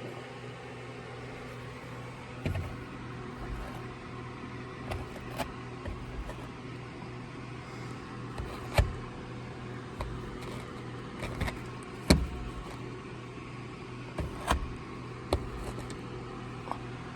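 A steady low hum with many irregular clicks and knocks over it, the sharpest a little under 9 seconds in and about 12 seconds in.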